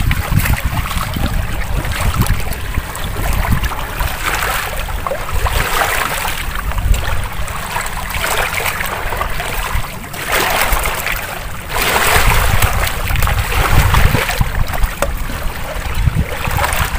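Small waves lapping and washing over shore rocks, swelling in surges every few seconds, with wind buffeting the microphone.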